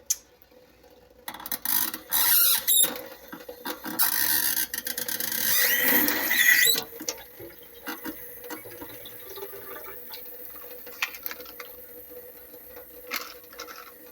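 Water rushing from an older leaking faucet in several surges, with a squealing whine from the valve, stopping sharply about seven seconds in; then scattered light clicks and taps.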